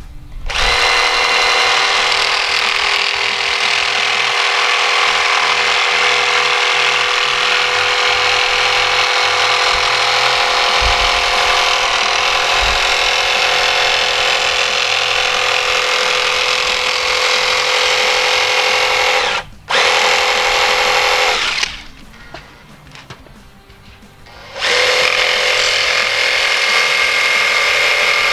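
Electric power tool motor running at a steady speed in long stretches. It stops sharply for a moment about nineteen seconds in, then for about three seconds a few seconds before the end, and starts again.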